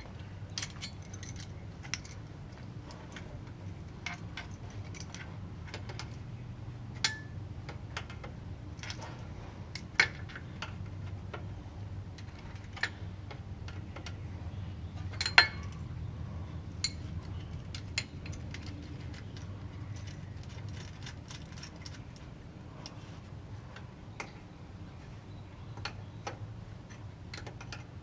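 Scattered light clicks and taps of hand work on metal parts and fittings, irregular, with a sharper knock at about ten seconds and another at about fifteen. A steady low hum runs underneath.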